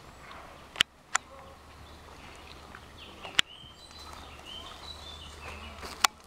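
Four sharp single cracks, spread irregularly over several seconds, with birds chirping between them.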